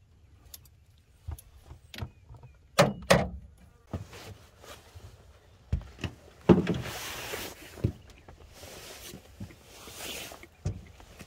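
Handling noises while unhooking a caught catfish: irregular knocks and clatters, two sharp knocks close together about three seconds in, then a longer rustling scrape about halfway through.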